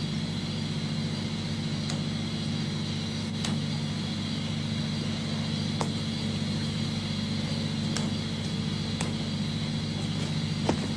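A steady low drone with a fainter high, even hiss above it and a few faint scattered clicks.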